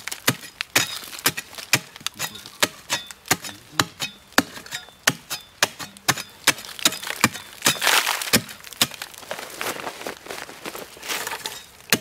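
A wooden-handled blade hacking and digging into the hard earth of a mound at the base of a tree: sharp, irregular knocks about two or three a second. About eight seconds in there is a longer stretch of scraping and crumbling.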